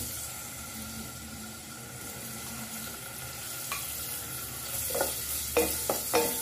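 Chopped onion sizzling steadily in hot mustard oil in a metal pan. Over the last second or so a wooden spatula stirs it, adding a few short scrapes and knocks.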